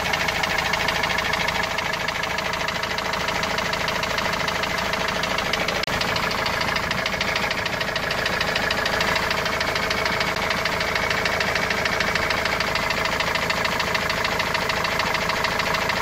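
Opel Vivaro's 2.5-litre diesel engine running at idle with a steady, rapid, hammer-like knock. The knock came on suddenly while the van was carrying a load, and the owner cannot tell where it comes from.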